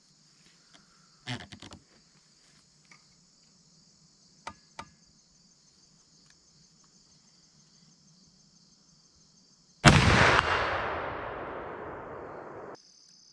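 Crickets chirping steadily with a few small clicks, then about ten seconds in a single shot from a CVA .50-calibre muzzleloader, its report echoing and dying away over about three seconds before cutting off abruptly.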